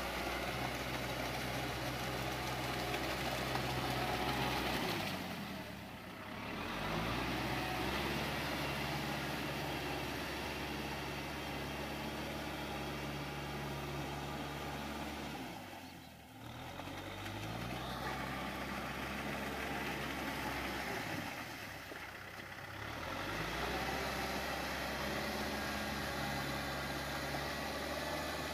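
Kubota M6040SU tractor's diesel engine labouring as it drives through deep mud and water, its revs dipping and picking back up three times, with the tyres churning the muddy water.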